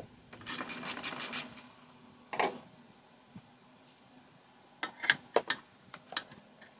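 Ratchet wrench clicking quickly for about a second, turning out the ABS unit's 10mm mounting bolt on a long socket extension. A louder metal clack follows, then a few light metal clicks and taps about five seconds in.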